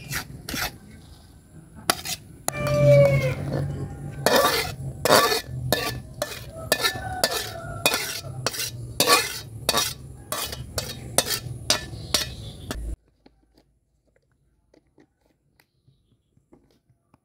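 Metal spatula clanking and scraping against a metal wok, stirring a stir-fry and scraping it out onto a plate, in quick irregular strokes; the strokes stop suddenly about thirteen seconds in.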